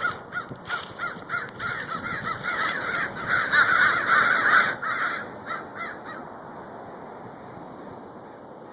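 Bird calls: a rapid run of short, harsh notes, several a second, growing louder in the middle and stopping about six seconds in, followed by a faint steady hiss.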